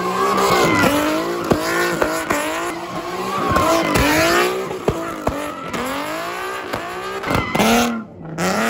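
A car engine revving hard, rising and falling in pitch over and over, with sharp pops between the revs and tire squeal, typical of a car drifting. The sound breaks off briefly near the end, then the revving starts again.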